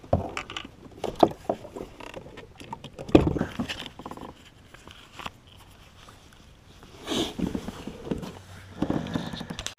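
Hands handling fishing tackle in a kayak: scattered clicks, knocks and rustling. The sharpest knocks come about one and three seconds in, and there are short bursts of rustling near the end.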